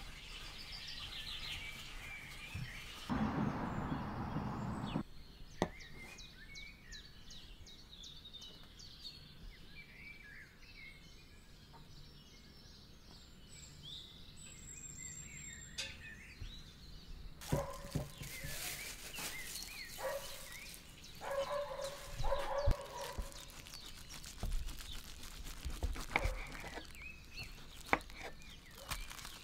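Outdoor ambience with small birds chirping now and then, over scattered taps and knocks of a knife and wooden rolling pin on a wooden board. A brief rush of noise comes about three seconds in.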